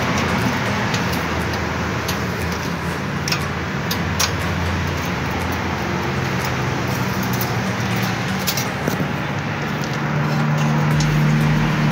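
A steady motor rumble, with a few sharp clicks as pliers twist steel tie wire around rebar.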